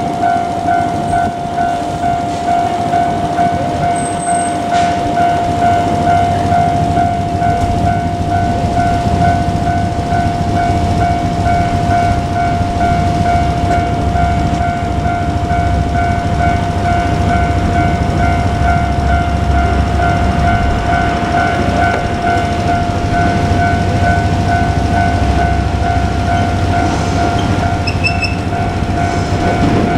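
Japanese level-crossing warning bell ringing continuously in a fast repeating electronic ding, over the low rumble of a diesel railcar train of the KiHa 40 series passing over the crossing. The rumble is heaviest around the middle.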